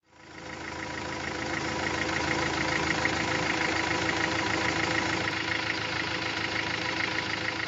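Engine idling steadily with an even, rapid pulsing beat, fading in over the first second.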